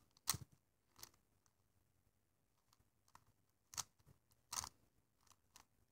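Plastic Megaminx puzzle being turned through an algorithm: faint, irregularly spaced clicks and clacks as its faces snap into place, four of them louder than the rest.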